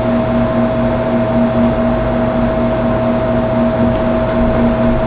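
Steady hum and hiss: an even noise with two constant tones, one low and one higher, that never changes.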